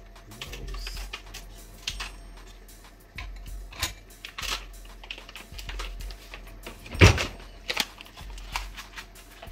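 Scattered light clicks and taps of kitchen handling at the stove, with one louder thump about seven seconds in, over a low steady hum.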